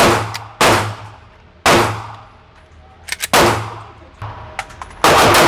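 Five pistol shots fired one by one at an uneven pace, each sharp crack followed by a short ring off the range walls, with a few small clicks between them.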